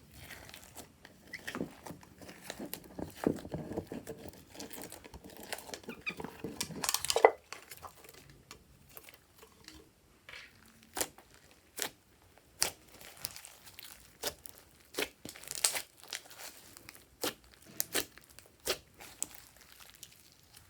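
Hands squishing and stretching slime: dense sticky crackling for the first several seconds, peaking in a loud crackle, then separate sharp pops and clicks about once a second.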